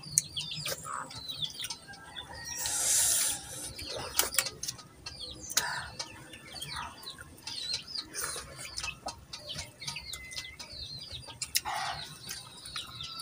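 Small birds chirping over and over and chickens clucking, mixed with close eating noises: chewing and mouth sounds and a few sharp clicks of a spoon against a dish, the loudest a noisy stretch about three seconds in.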